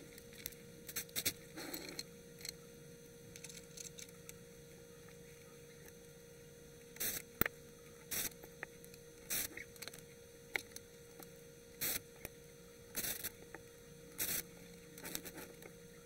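Hand screwdriver turning screws into a reel-to-reel tape deck: a series of short scraping twists, coming about once a second in the second half, over a steady low hum.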